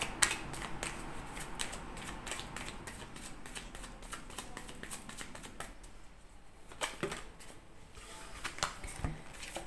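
A tarot deck being shuffled by hand: a quick, dense run of card flicks for the first five or six seconds, then a few scattered card snaps and taps as the shuffling slows.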